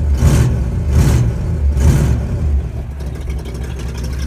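Chevrolet Impala engine running just after starting: the throttle is blipped three times in quick succession, then the engine settles to a steady idle.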